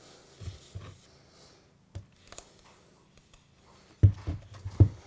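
Handling sounds of a spray-foam gun being worked in a hole in drywall: a few soft clicks, then about four seconds in a sudden cluster of low knocks and thumps, the loudest sounds here.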